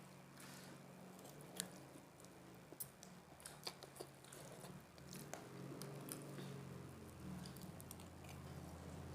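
Quiet chewing of boiled instant noodles and krupuk crackers, with scattered sharp clicks, over a steady low hum.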